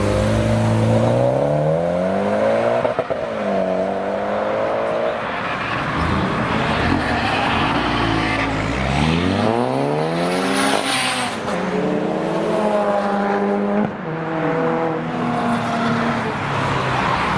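Tuned car engines accelerating hard away, the pitch climbing and dropping back as they rev and change gear, with a second strong run-up about halfway through.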